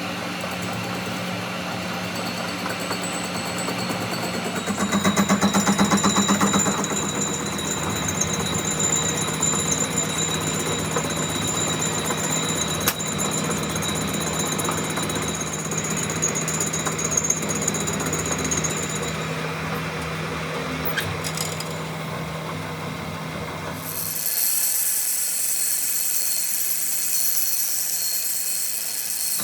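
Workshop machinery running steadily with a motor hum and a few held whining tones, louder for a couple of seconds early on. About 24 seconds in it changes abruptly to a steady high hiss.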